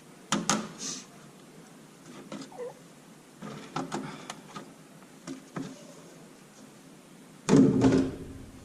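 Irregular knocks and metal clatter from tools and parts being worked on a Magnuson TVS-2300 supercharger during disassembly, with a heavier thump near the end.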